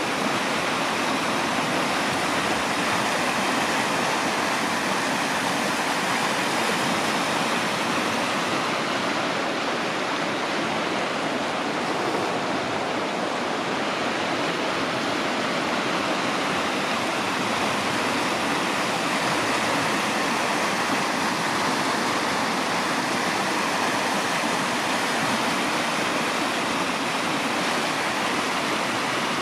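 Steady rush of a river flowing over rocks, an even hiss of moving water.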